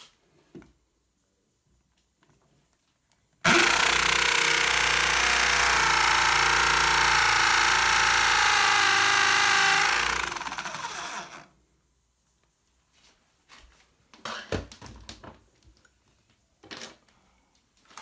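Black+Decker electric drill with a masonry bit boring into the wall: it starts suddenly about three seconds in, runs steadily at full speed for some six seconds, then winds down and stops. A few light knocks from handling the drill follow.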